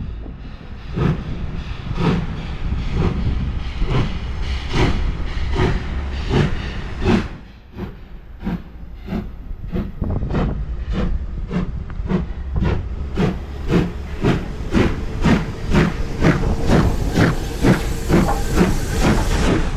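Steam locomotive exhaust beats, a regular chuff with steam hiss, quickening from about two beats a second to about three as the engine picks up speed.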